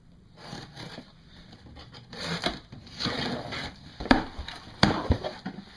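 Corrugated cardboard shipping box being opened by hand: tape and flaps pulled, with irregular scraping and rustling of cardboard and two sharp snaps about four and five seconds in.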